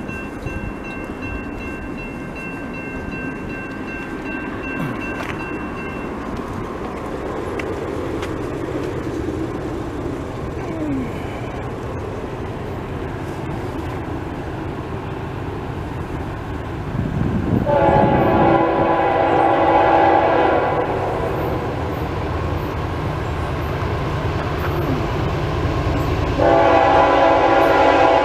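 Approaching CSX freight train led by a GE AC4400CW diesel locomotive: a low rumble builds slowly, and the locomotive's horn sounds two long blasts, one about two-thirds of the way through and one near the end. A grade-crossing warning bell rings steadily for the first several seconds.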